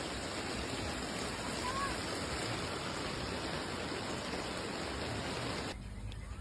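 Steady hiss of heavy rain, breaking off abruptly near the end.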